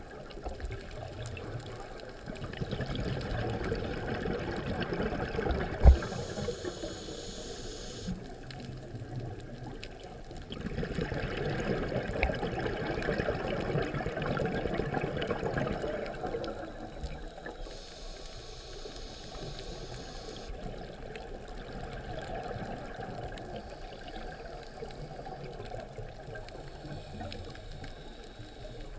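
Scuba diver breathing through a regulator, heard underwater: two long rushes of exhaled bubbles, each followed by a brief high hiss of inhalation through the regulator. There is one sharp knock about six seconds in.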